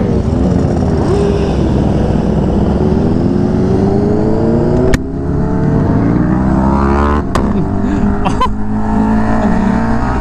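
KTM Super Duke V-twin accelerating hard through the gears: its pitch climbs, then drops sharply at three upshifts, about five, seven and eight and a half seconds in, with a sharp crack at each shift.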